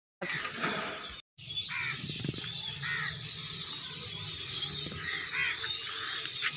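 Birds chirping in quick, repeated falling notes, with three harsher calls among them. The sound drops out completely for a moment just after a second in.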